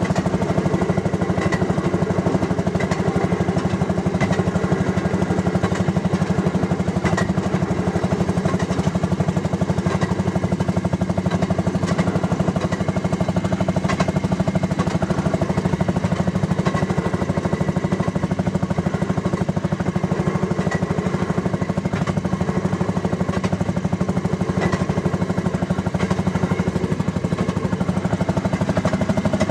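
Fairmont M9 railroad motorcar's 8 hp Fairmont ROC two-stroke engine running steadily under way, a fast even putt-putt, with occasional sharp clicks.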